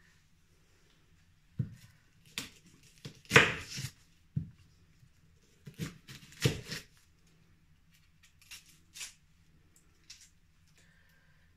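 Kitchen knife cutting a red onion on the counter: irregular cuts and knocks of the blade on the surface, loudest about three and a half seconds in, over a low steady hum.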